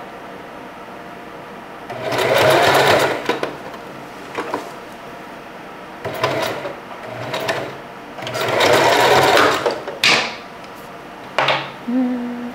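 Singer 4423 Heavy Duty sewing machine stitching a hair weft onto a wig cap in several short runs of one to two seconds, stopping and starting as the weft is guided through.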